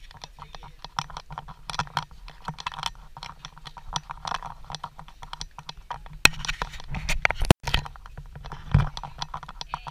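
Ambient clatter of many sharp clicks and knocks over a low steady hum, with a louder run of knocks about two-thirds of the way in and a dull thump near the end.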